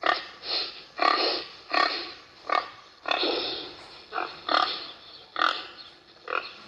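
Pig grunting: about ten short, rough calls in quick succession.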